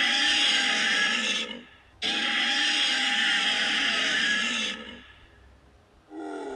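Custom-made Godzilla roar sound effects: a rough, screeching roar, then a second, longer roar, each starting and stopping abruptly. A quieter, lower roar begins near the end.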